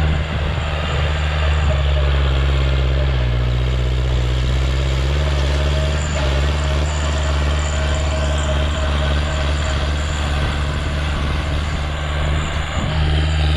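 Kubota L5018 tractor's diesel engine running steadily under load, pulling a rotary tiller through dry soil. The engine note dips briefly about three seconds in and recovers.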